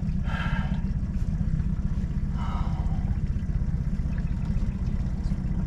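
Boat's outboard motor idling with a steady low rumble.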